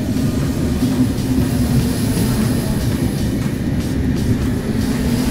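Trenord double-deck commuter train moving past along the platform: a loud, steady low rumble.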